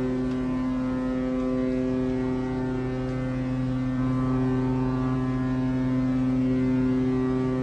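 Ship's horn sounding one long, steady, low-pitched blast, sounded as a memorial salute.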